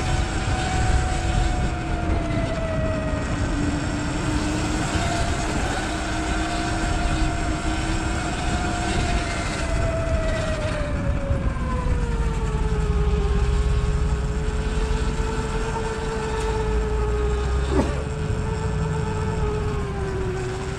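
Sur Ron electric dirt bike's motor and drivetrain whining under way, over wind and road rumble. The whine drops in pitch about halfway through as the bike slows, then holds steady, with a single sharp tick near the end.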